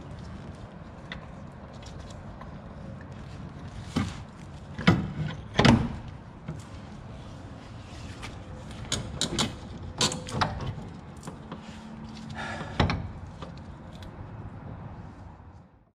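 Sharp metal clunks and knocks as a new front CV axle is worked into place in the wheel hub and knuckle. A few hard knocks come about four to six seconds in, and a cluster of lighter ones around nine to eleven seconds.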